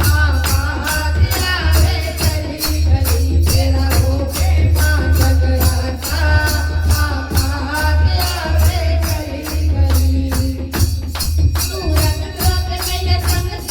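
Devotional kirtan music, mostly instrumental: a melody line over a fast, steady beat of jingling percussion and heavy bass.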